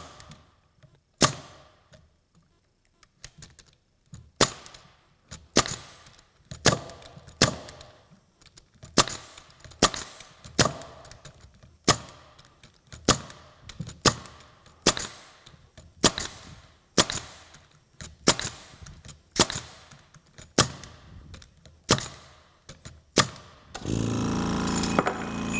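Ridgid 18-gauge pneumatic brad nailer firing nails into a wooden beam: about twenty sharp cracks, roughly one a second, with a short pause near the start. Near the end the Stealth 3-gallon oil-free compressor's motor kicks on and runs steadily, as the tank pressure has dropped to its cut-in point.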